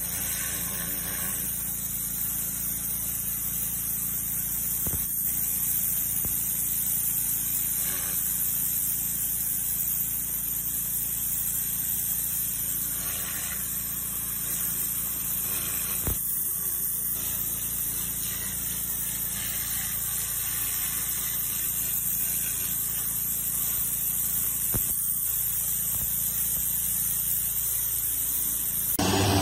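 Pressure washer spraying a narrow high-pressure jet onto flagstone stepping stones, blasting grime off them: a steady hiss of water with the machine's steady hum underneath.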